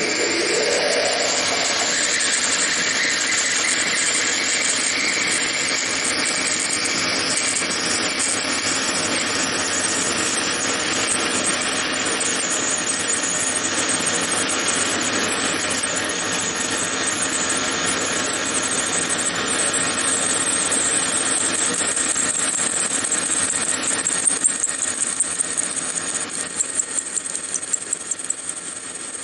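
Metal lathe turning with a twist drill in the tailstock, cutting through the bore of a steel change gear: a steady machining noise. Near the end, the cut breaks into a run of sharp, uneven pulses.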